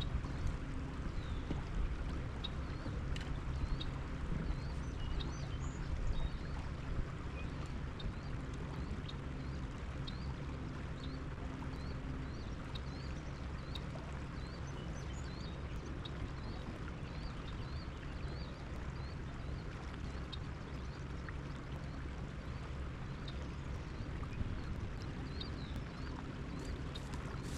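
Steady low rush of river water with wind on the microphone. Through most of it runs a faint, short high chirp, repeating about once a second.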